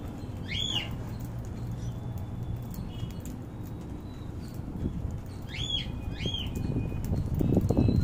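Cockatiels feeding on sunflower seeds, with scattered small clicks of pecking and a low rustle that grows louder near the end. Three short rising-and-falling chirps: one near the start and two in quick succession about six seconds in.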